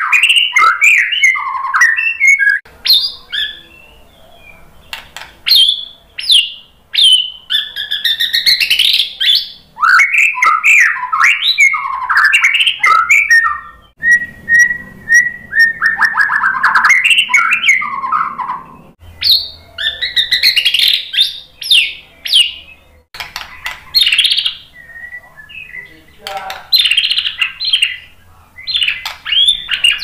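Male white-rumped shama singing loudly: phrases of a few seconds of whistles and rapid trills mixed with sharp clicking notes, broken by short pauses.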